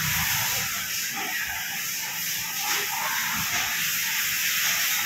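Steady hiss of background noise.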